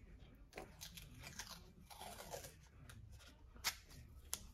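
Faint handling of a roll of painter's tape and loose wiring: soft rustling and crinkling of tape being pulled and torn, with two short sharp clicks near the end.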